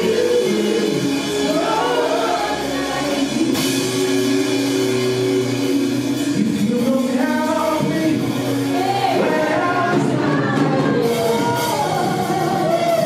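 Praise and worship music: voices singing over instrumental accompaniment, at a steady, full level.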